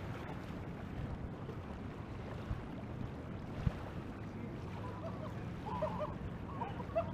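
Steady wind and river-water noise on the microphone, with one sharp knock about four seconds in. Near the end, geese honking faintly, several short calls in a row.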